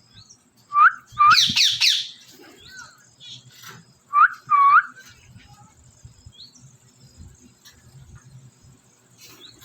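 Pet parrot calling: two sharp rising screeches, a quick burst of chatter, then two more rising calls about four seconds in, followed by only faint scattered chirps.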